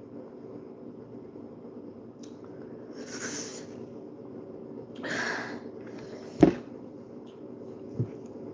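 Two hissing breaths and chewing from a mouth burning with chili heat after spicy noodles, with a sharp loud knock about six seconds in and a softer knock near the end, over a steady low hum.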